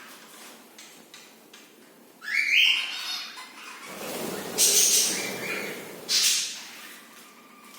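Pet birds calling, with three loud calls about two, four and a half and six seconds in.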